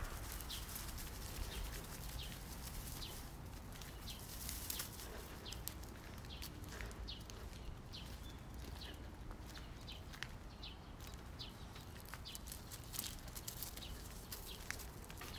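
Light footsteps and scattered small clicks while walking, over a steady low rumble of wind on the phone's microphone.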